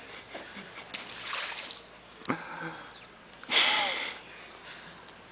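Swimming-pool water splashing in a few short, irregular bursts, the loudest about three and a half seconds in.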